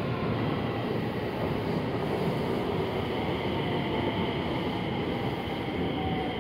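Hiroshima Electric Railway 5200-series low-floor tram no. 5205 pulling away from the station and running off along the track: a steady rumble of wheels on rail with faint steady tones above it.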